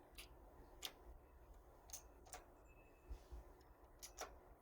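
A handful of faint, sharp clicks spaced irregularly through near quiet: two close together near the start, a couple around the middle, and a quick pair near the end.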